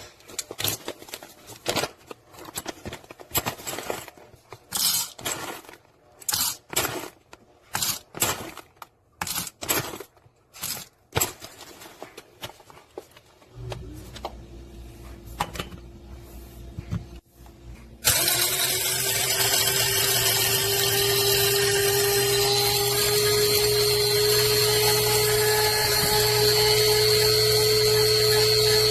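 Irregular clicks and knocks of handling, then a low hum, then a loud steady whirring of an electric blade coffee grinder's motor (Proctor Silex) for about eleven seconds with a steady pitch.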